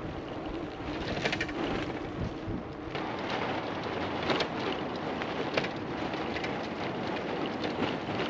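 Loaded Surly Ogre touring bicycles rolling over cobblestones: a steady rattling clatter of tyres, racks and panniers, with many sharp knocks. For the first few seconds it is smoother tyre noise on a paved path, then the rattle takes over.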